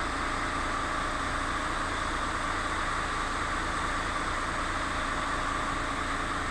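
A steady machine sound: an even hiss over a low hum, running without change.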